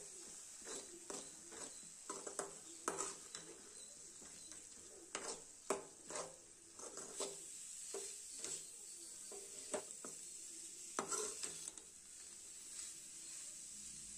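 Metal ladle scraping and knocking irregularly against a steel kadai as goat blood crumbles are stirred without pause, over a steady sizzle of frying in oil. The blood is being fried down until it turns dark and crumbly.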